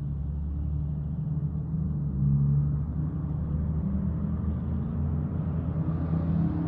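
Dodge Charger Daytona's Hemi V8 exhaust through dual Jones Turbine JR20 mufflers, a steady deep rumble while driving, swelling briefly about two seconds in.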